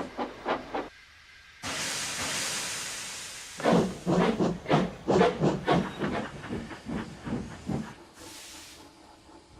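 Steam locomotive sound effects: a few exhaust chuffs, then about two seconds of steam hissing, then a run of chuffs, about three a second, that fade away, with a short burst of hiss near the end.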